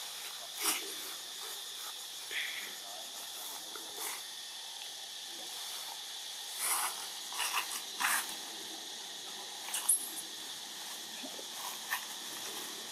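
Macaques moving about in a tree: scattered short rustles and snaps of leaves and branches, the sharpest about ten seconds in, over a steady high hiss.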